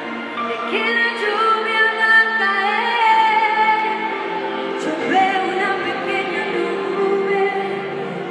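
Worship music: a group of singers, with female voices prominent, singing sustained lines over instrumental accompaniment.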